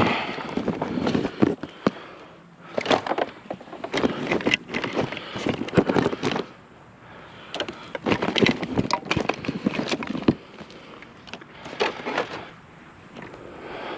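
Discarded junk being handled and moved in a curbside scrap pile: bursts of clattering and knocking that come in several spells, with short pauses between.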